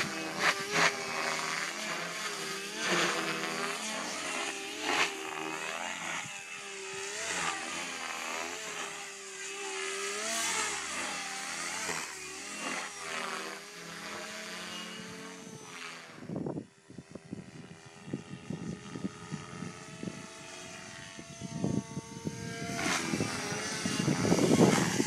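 Compass Warp 360 electric RC helicopter flying aerobatics at low head speed: rotor blades whooshing and the electric motor whining, its pitch wavering up and down with each manoeuvre. About two-thirds through the sound dips briefly, then settles to a steadier tone and grows louder near the end.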